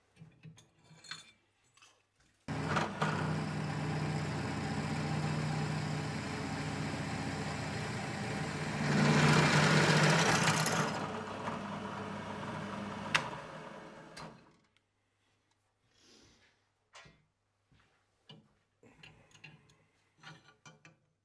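Drill press motor switched on and running steadily, with the twist bit cutting into a steel pipe clamped in the vise; the sound gets louder and harsher for about two seconds while the bit bites, then the motor is switched off and winds down. Light metal clicks of vise handling follow.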